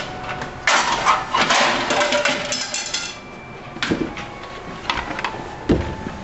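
Broken plastic pieces of a smashed portable radio clattering and knocking as they are picked up off a stone floor and handled: a dense clatter through the first three seconds, then a few separate knocks, the last a dull thump.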